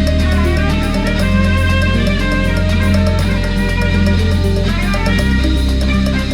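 Electronic music with a deep sustained bassline, a plucked-string melody and a steady beat; the bass changes note about a second in and again near the end.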